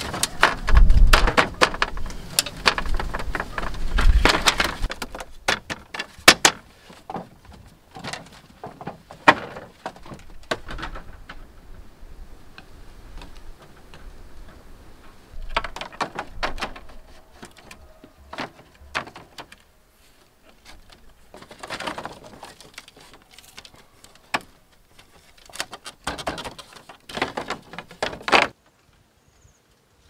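Bamboo poles and split-bamboo slats knocking and clattering against each other as they are laid and tied into a hut floor, in irregular clusters of hollow knocks. The sound cuts off shortly before the end.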